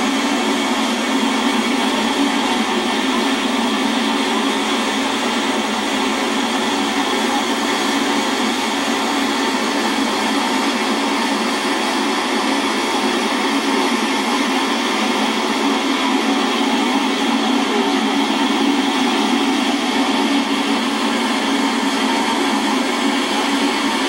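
Waterfall rushing: a loud, steady, hissing rush of falling water with no low rumble, unchanging throughout.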